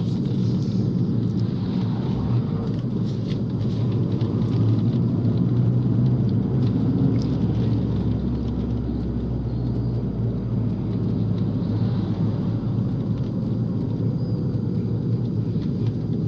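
Fiat 500 Abarth's turbocharged 1.4-litre four-cylinder heard from inside the cabin, running steadily under way with a constant low rumble of road and tyre noise. Light rattles come through now and then in the first few seconds.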